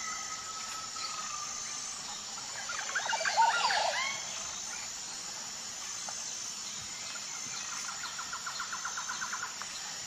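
Outdoor nature ambience of birds and insects: steady high insect trilling throughout, a burst of quick chirping bird calls about three seconds in, and a rapid pulsing trill near the end.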